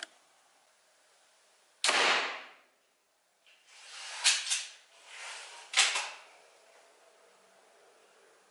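Mark 3 slingshot launcher shooting into a ballistic gel block: three sharp snaps of the band releasing and the projectile striking, the first about two seconds in and the others a little over two and about four seconds later, each with a short ringing tail.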